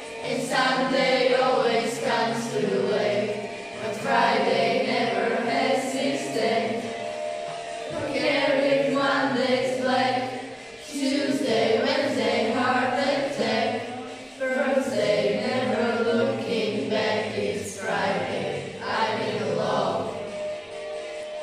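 A group of schoolchildren singing a song together over a recorded backing track, in phrases with short breaks between them. The singing grows quieter near the end.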